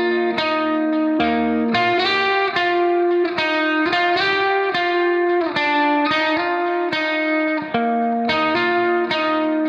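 Background music: plucked guitar chords strummed in a steady rhythm.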